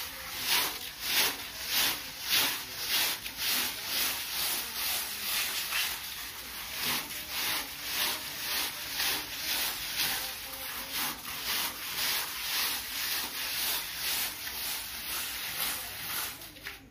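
A sponge float rubbing over fresh, water-wetted cement plaster in quick back-and-forth strokes, about two a second. This is the sponge finish that smooths the plaster surface.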